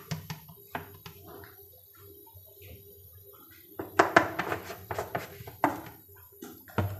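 A plastic jar being handled and its cap twisted, giving scattered plastic clicks and knocks, busiest between about four and six seconds in, over a faint steady hum.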